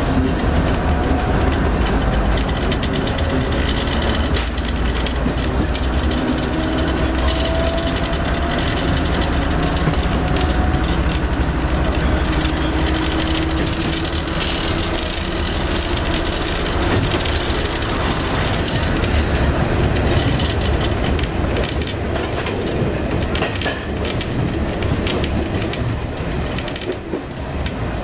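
Train running along the line, heard from its rear cab: a steady rumble of wheels on rail with clickety-clack from the rail joints, and a faint whine that slowly rises in pitch during the first half.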